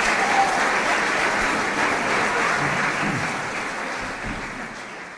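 Audience applauding, a steady clapping that begins to fade near the end.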